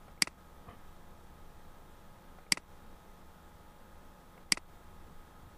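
Three sharp computer mouse button clicks, about two seconds apart, over faint room noise.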